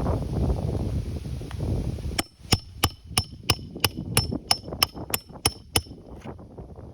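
Wind buffeting the microphone, then about a second in a quick run of about a dozen hammer blows on metal, roughly three a second, each with a bright metallic ring. It sounds like a roofing hammer driving a nail or striking a flat bar or nail puller.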